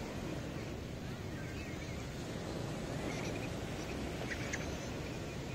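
Sea surf washing onto a beach, a steady low rushing noise with some wind on the microphone. Faint short high chirps and a few clicks sound over it about a second and a half in, around three seconds, and again near four and a half seconds.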